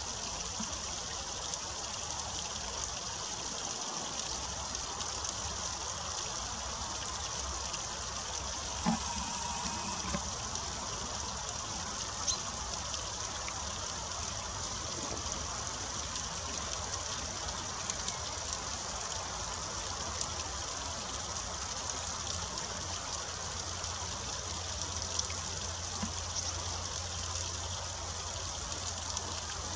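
Thin stream of water trickling steadily down a wet mossy rock into a shallow pool, with a few faint ticks.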